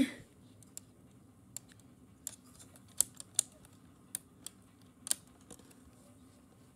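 Irregular small clicks and taps from fingers handling the plastic and metal parts of an opened Soundesign 7621 cassette recorder's tape mechanism, about eight in all, the sharpest around three and five seconds in.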